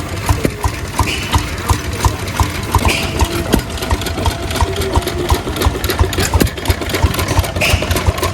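Hit-and-miss stationary gas engines running, with a steady rhythm of sharp pops and clicks about twice a second over a low chugging rumble.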